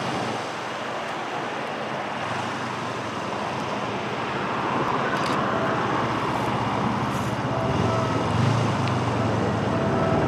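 Steady distant rumble that slowly grows louder, with a low engine hum swelling about eight seconds in: a train approaching, still some way off.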